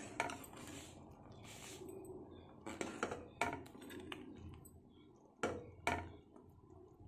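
Steel ladle stirring vermicelli and fox nuts simmering in milk in a pan, knocking and scraping against the pan in a series of irregular clinks.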